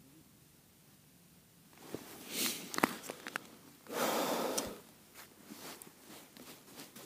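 Rustling of a winter jacket and light clicks from hand movements close to the microphone, starting about two seconds in, with a louder short rushing noise lasting under a second about four seconds in.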